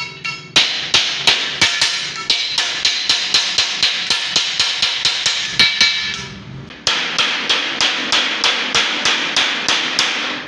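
Hammer striking the seam of a galvanized sheet-metal cylinder in quick, steady blows, about three a second, each blow ringing through the drum.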